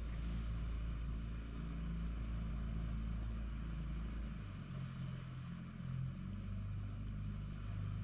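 Motorboat engine running steadily, unseen on the river; its low note drops about halfway through.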